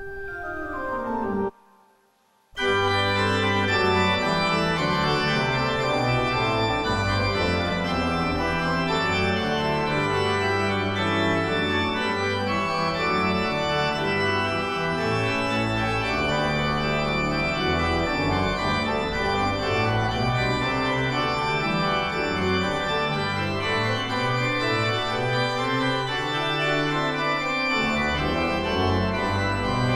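A short falling tone, then about a second of near silence, then organ music from about two and a half seconds in: full, held chords that change slowly.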